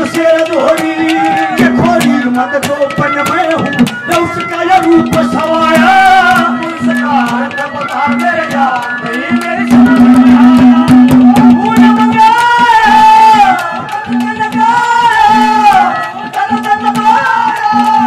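Live Haryanvi ragni folk music: a bending melody line over a steady held drone note, driven by quick hand-drum strokes.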